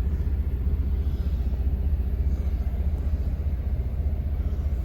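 Steady low rumble of a semi-truck's diesel engine running, with a fast, even pulse.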